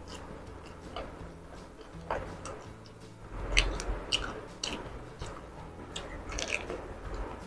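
Close-up sounds of a person eating roasted chicken: the meat torn apart by hand, then bitten and chewed, as scattered sharp wet clicks a few times a second, the loudest about three and a half seconds in.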